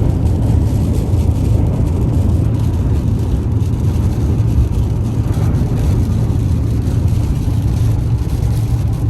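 Steady low rumble of a car on the move, heard from inside the cabin: road and engine noise at a constant level.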